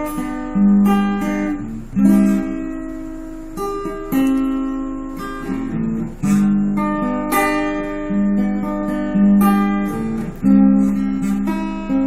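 Acoustic guitar strummed, chords struck about once a second and left ringing between strokes, with no singing over them.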